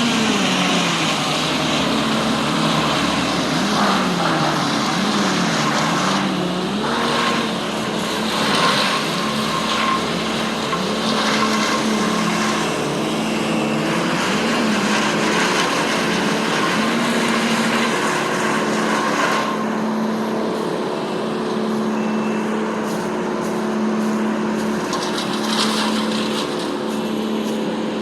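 Engine-driven tree-removal machinery running, its engine pitch swinging up and down repeatedly and then holding steady for most of the rest, over a dense wash of mechanical noise with a few sharp knocks.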